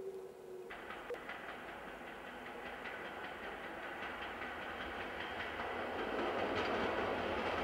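SM42 diesel shunting locomotive passing close: its engine running and its wheels clicking over the rails, growing steadily louder as it comes alongside.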